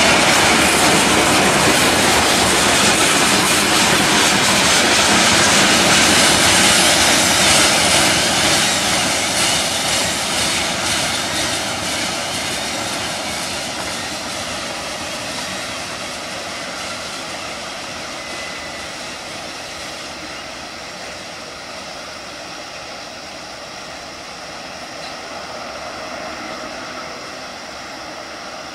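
Freight train of tank cars rolling past on steel wheels, a loud steady rumble and clatter of wheels on the rails. It fades gradually from about seven seconds in as the end of the train draws away, then lingers as a faint, steady distant rumble.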